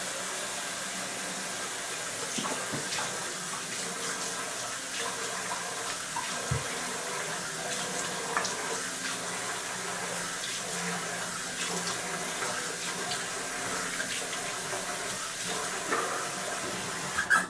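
Bathroom sink tap running steadily, with small splashes as hands rinse a face in the stream. The water shuts off abruptly near the end.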